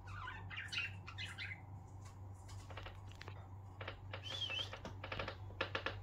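Budgerigars chattering softly: a few short chirps, then quick clicky trills with a brief whistled note in the middle.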